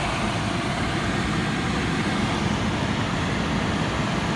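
1986 White Westinghouse 10,500 BTU air conditioner running with its compressor and General Electric fan motor on: a steady whir with a low hum underneath, the unit cooling.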